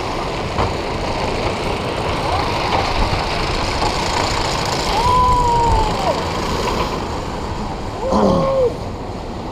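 Mechanical-horse roller coaster car climbing the lift hill: a steady rumbling rattle, with a couple of short pitched calls about halfway through and again near the end.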